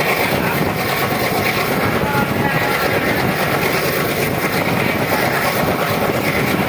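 Passenger train running along the track: a steady, loud rush of wheel and rail noise.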